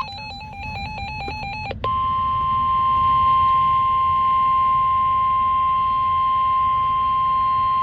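NOAA Weather Radio emergency alert: a short burst of rapidly warbling digital data tones, the SAME alert header, then about two seconds in the 1050 Hz warning alarm tone, one loud steady beep held over faint radio static. The alarm tone signals that a warning message follows.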